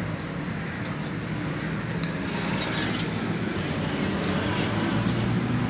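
A motor vehicle engine running steadily with a low, even hum, along with a few faint clicks.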